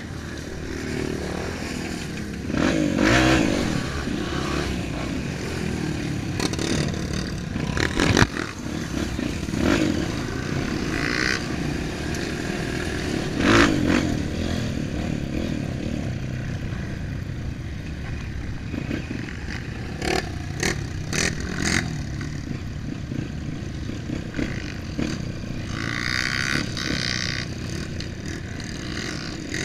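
Off-road motorcycle engine running while being ridden over gravel and dirt, its pitch rising and falling with the throttle. A few sharp knocks and clatter from the bike on rough ground.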